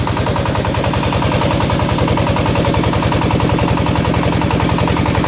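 Engine-driven wood pellet press running loudly and steadily, the engine firing in a rapid, even stream of pulses.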